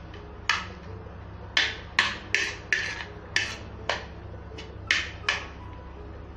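A steel spoon clinking and scraping against a plate while tossing a chicken salad: about a dozen sharp clicks at an uneven pace, each fading quickly.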